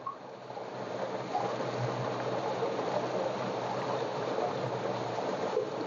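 Water gushing steadily from a tube-well pipe into a brick tank, an even rushing noise.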